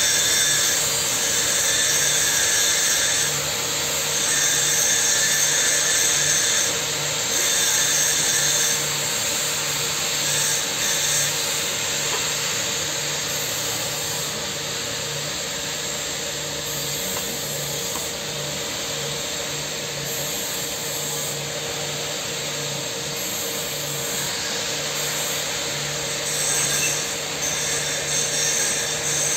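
Steady power-tool noise: a hiss over a constant hum. It is louder for the first several seconds, drops back, and rises again near the end.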